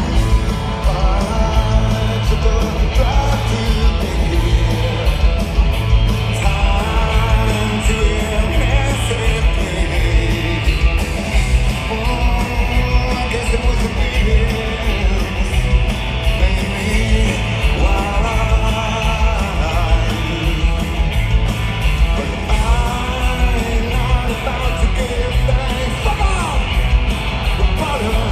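Rock band playing live through an arena sound system: electric guitars and a steady driving drum and bass beat, with singing and yells over it.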